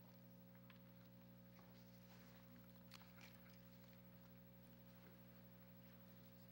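Near silence: large-hall room tone with a steady low electrical hum and a few faint rustles and ticks.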